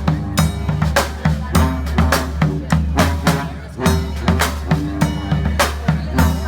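Brass band playing live: a drum kit keeps a steady beat, about two strong strikes a second, under held brass notes and a low bass line.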